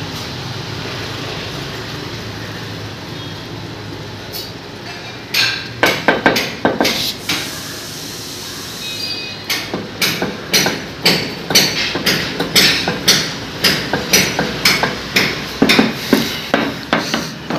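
Ceramic wall tiles being tapped into place on fresh cement with a hand-held block: a run of sharp knocks starting about five seconds in, settling to about two a second. Before the knocks there is only steady background noise.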